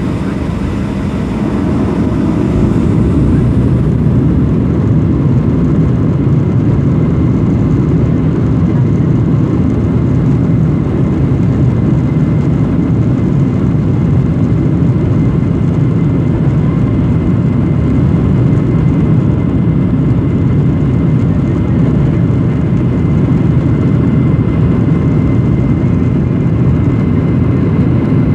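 Boeing 737-800's CFM56-7B jet engines at takeoff thrust, heard from inside the passenger cabin during the takeoff roll: a loud, steady low rumble with a faint steady whine on top. It swells over the first few seconds and then holds as the jet accelerates toward rotation.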